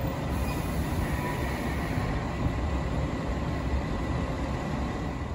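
JR West 381 series electric limited express train creeping slowly into the station platform as it comes to a stop: a steady low rumble of the train's running gear and motors.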